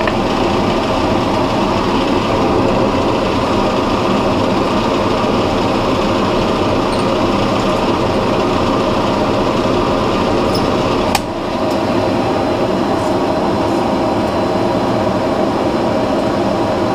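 Drill press running steadily while a brad point bit bores into a plywood jig block, with one sharp click about eleven seconds in.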